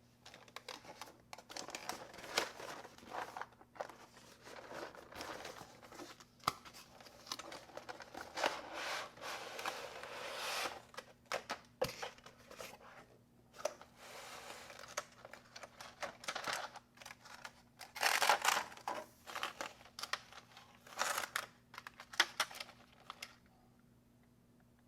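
Keycap set packaging being unwrapped and handled by hand: uneven bouts of crinkling, rustling and tearing with small clicks and taps, loudest about eighteen seconds in, stopping shortly before the end.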